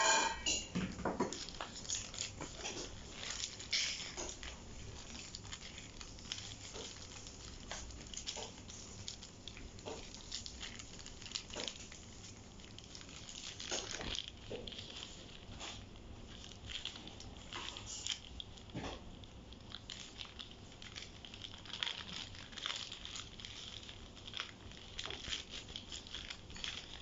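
Havanese puppies chewing and tugging at a newspaper: irregular crinkling and rustling of paper with bites and scuffles.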